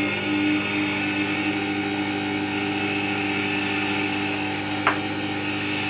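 Record Power WG200 wet stone sharpener running, its motor turning the whetstone and leather honing wheel with a steady hum of several tones. A single click about five seconds in.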